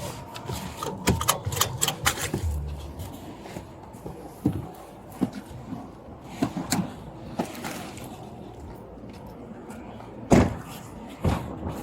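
A cluster of sharp clicks and knocks, then scattered knocks, and two loud thumps about a second apart near the end.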